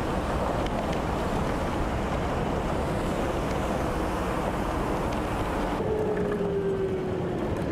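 Land Rover driving on a rough mountain road, heard from inside the vehicle: a steady rushing rumble of engine and road noise. About six seconds in, the sound changes and a thin whine that slowly falls in pitch runs under it.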